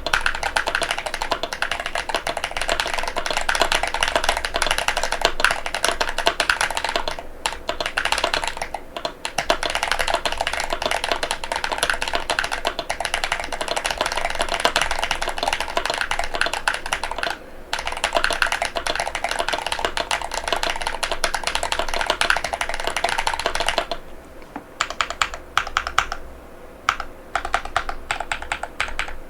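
Fast, continuous typing on an Epomaker RT100 mechanical keyboard with Gateron Beer switches and polycarbonate Cherry-profile keycaps, broken by a few brief pauses. Near the end the keystrokes slow to scattered, separate clacks.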